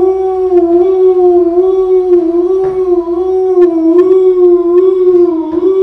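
A man's voice imitating a howling snowstorm wind: one long, wavering 'hoooo' at a steady pitch, with a few faint taps.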